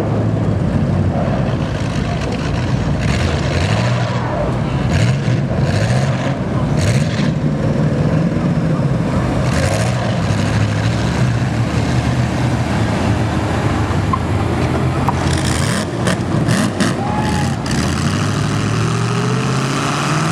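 Demolition derby car engines running and revving, their pitch rising and falling, with repeated short bangs of the cars colliding: several in the first half and a quick cluster near the end.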